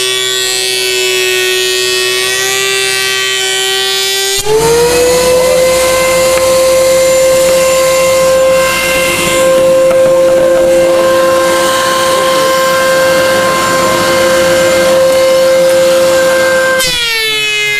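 Surface planer running with a loud, steady whine. About four seconds in the tone jumps higher and a rough cutting noise joins it, fitting a board of black limba feeding through the cutterhead. Near the end the noise stops and the whine glides back down.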